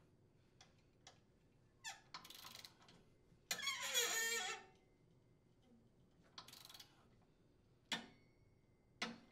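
Torque wrench's ratchet working a 9/16-inch socket on a bolt: short bursts of rapid ratchet clicking, the loudest about four seconds in, with a few single sharp clicks near the end.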